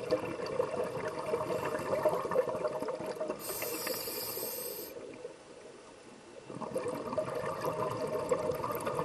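Underwater sound of a diver breathing through a regulator: bubbling exhalations with a steady pitched drone, a short bright hiss about three and a half seconds in, and a lull of about a second and a half past the middle before the bubbling resumes.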